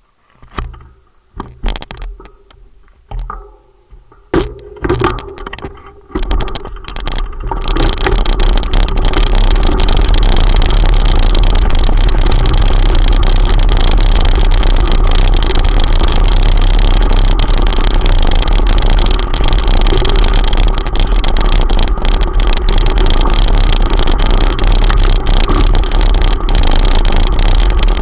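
A few knocks and scrapes as the handlebar camera is turned on its mount. Then, from about eight seconds in, a loud steady rumble of mountain-bike tyres on loose gravel, with wind buffeting the action camera's microphone.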